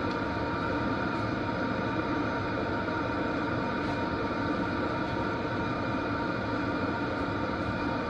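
Vevor V4 toolbox diesel heater running steadily on high, an even combustion and fan noise with no spitting or sputtering while it is cut over from grid power to a power station's battery backup.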